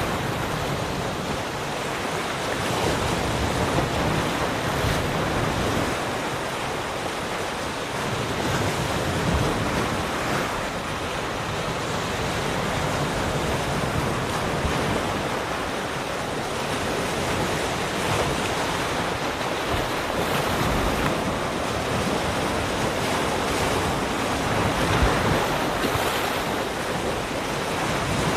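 Ocean waves breaking and washing on a shore, a steady rush of surf that swells and eases every few seconds.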